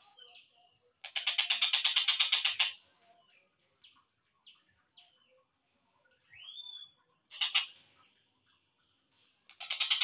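Slowed-down recording of a tengkek buto kingfisher calling. A rapid, evenly pulsed chattering trill gives way to scattered short chirps and one rising, arching note. The chatter starts again near the end.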